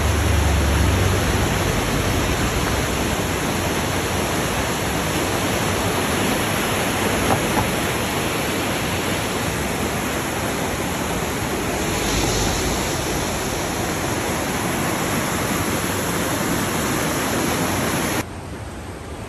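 River in flood, swollen over its banks, its fast water rushing in a steady, loud noise. Near the end it drops suddenly to a quieter rush.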